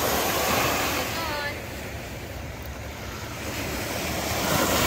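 Small sea waves breaking at the shoreline and washing up the sand, surging twice: at the start and again near the end.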